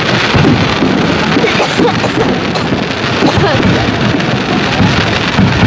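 Fireworks display: a dense, unbroken barrage of bursting shells and crackles.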